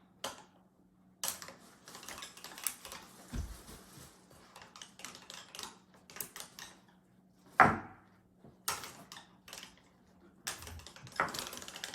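Small plastic toy pieces clicking and clattering as they are handled, in irregular taps, with one louder knock about seven and a half seconds in.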